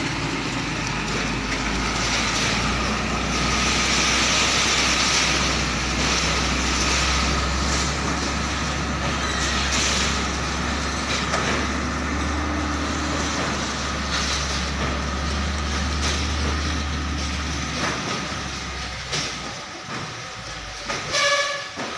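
Diesel engine of a Hino 500 container tractor-trailer running with a steady low drone as the rig moves off, fading away about eighteen seconds in. A brief high-pitched tone sounds near the end.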